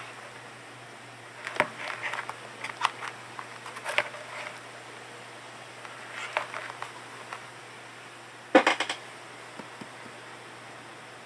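Scattered clicks and rustling from handling, the loudest a quick cluster of sharp clicks about eight and a half seconds in, over a low steady hum. The reversing buzzer is not yet sounding.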